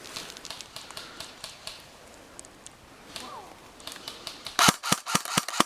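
Airsoft gunfire: a quick string of about six sharp cracks near the end, following a few scattered clicks.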